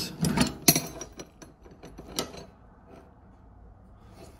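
Metal hand tools clinking and knocking against each other as they are shifted around in a toolbox tray: a few separate sharp clicks in the first couple of seconds, the loudest a little under a second in, then it goes quiet.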